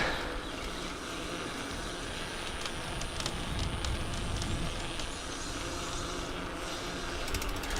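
Steady rumbling outdoor background noise with a few faint clicks.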